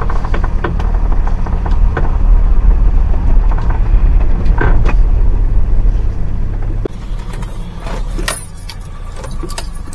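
Daihatsu Hijet mini truck running and driving slowly, heard from inside the cab: a noisy, deep engine rumble with light rattles and knocks. The rumble drops quieter about seven seconds in.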